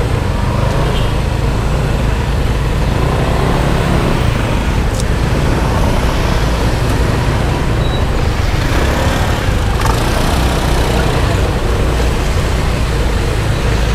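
Congested road traffic heard from a slowly moving motorbike: a steady low rumble of car and scooter engines and road noise.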